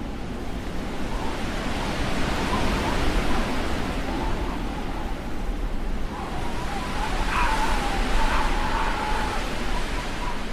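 Blizzard wind blowing as a dense rushing noise that swells and eases, with a thin howling whistle that wavers up and down in pitch, strongest in the second half.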